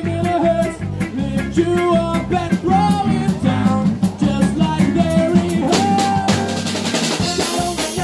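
Live band music from a horn section of saxophones and a trumpet playing over a drum-kit beat, with cymbals ringing louder near the end.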